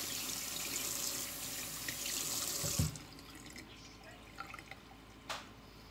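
Kitchen tap running into a stainless steel sink as hands are rinsed under it, shut off nearly three seconds in with a low thump. A few faint clicks follow, and one sharp click near the end.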